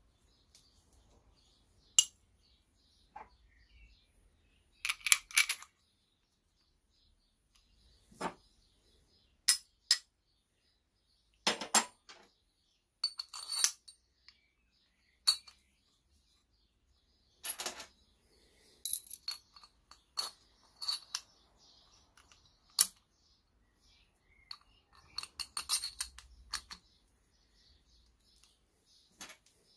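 Metal clutch parts of a two-wheel tractor clinking and clattering as they are handled and fitted together by hand. About a dozen sharp clicks and short rattling runs, with quiet gaps between.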